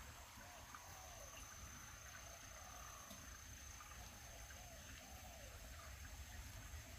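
Faint running water from a small waterfall and creek, with a steady high-pitched insect drone. A few short rising-and-falling calls come about a second in and again near five seconds.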